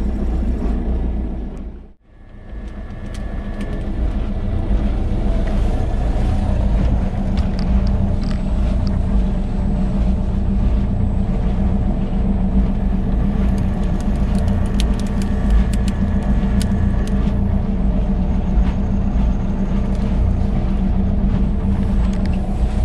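Steady mechanical motor hum over a low rumble, with a few faint ticks around the middle. The sound dips out and comes back about two seconds in.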